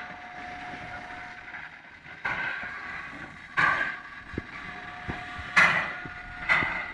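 Steam locomotive working slowly past, its exhaust giving four loud, unevenly spaced chuffs over a steady background.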